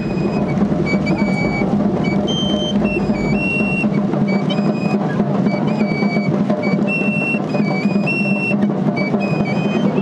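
Pipe and tabor: a small three-hole pipe playing a high, shrill melody of short held notes stepping up and down, over a small hand drum.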